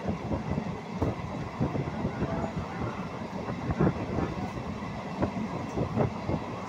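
Train running along the track, heard from inside a moving coach: a steady rumble of wheels on rail with irregular clicks and knocks.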